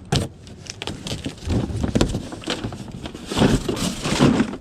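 Objects being handled and moved about: irregular knocks, clatters and rustling in uneven bursts, loudest in the second half.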